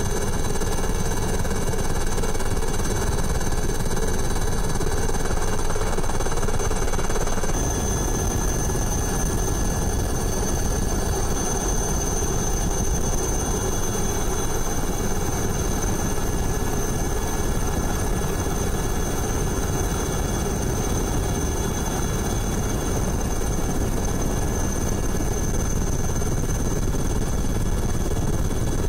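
Helicopter in flight: turbine engines and rotors running steadily, a constant high whine over a dense rotor drone.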